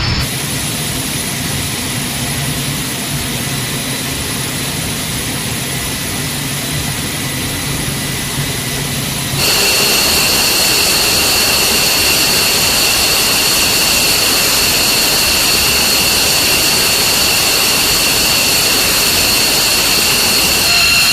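F-15 Eagle's twin jet engines running steadily. About nine seconds in, the sound jumps abruptly louder, with a strong high-pitched whine over the noise.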